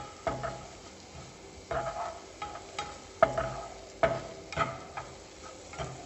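Black plastic spatula stirring and scraping onions, curry leaves and green chillies through hot oil in a nonstick frying pan, knocking against the pan at an irregular pace. A light sizzle of the spices tempering runs underneath.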